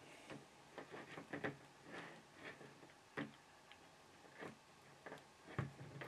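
Faint, irregular clicks and ticks from a hand cable stripper being worked around the jacket of RG6 coax cable, about a dozen in all, the loudest near the end.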